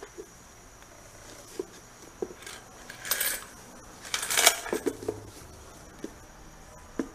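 Small objects being handled by hand: scattered light taps and knocks, with two short bursts of rustling about three and four seconds in, the second the loudest.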